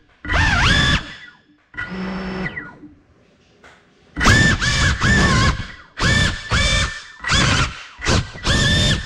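GEPRC Cinelog35 cinewhoop's brushless motors and ducted props spinning up in about ten short whining bursts, the pitch rising and falling in each, while the downed drone lies on the floor. The bursts come close together in the second half.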